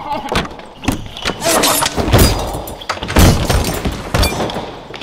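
Dubbed fight sound effects: a string of sharp hits and heavy thuds with a breaking, crashing edge, mixed with a short vocal grunt.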